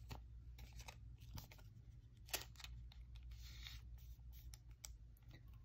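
Faint rustling and scraping of a baseball card being slid into a soft plastic penny sleeve, with scattered light ticks and one sharper tick a little over two seconds in.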